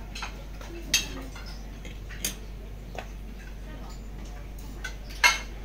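Steady murmur of voices with four sharp clicks or clinks, the loudest about a second in and again near the end.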